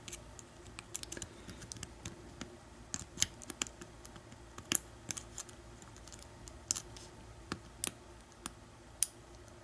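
Lock pick working the pins of an American Lock 1100 padlock under heavy tension: irregular small metallic clicks and scrapes as pins are pushed one at a time, with a few sharper clicks.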